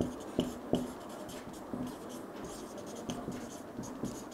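Marker pen writing on a whiteboard: a quiet scratching as the words are drawn, with a few short ticks as the tip touches down between strokes.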